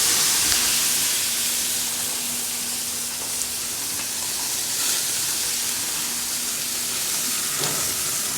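Charcoal-style grill hissing loudly and steadily as the fire under a steak is knocked down, with the meat sizzling on the grate.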